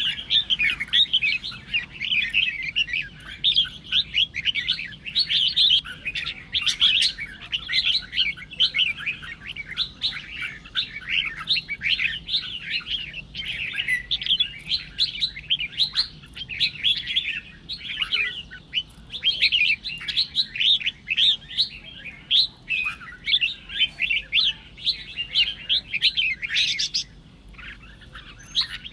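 Red-whiskered bulbul singing: a continuous, rapid run of bright chirps and short whistled phrases with no pauses.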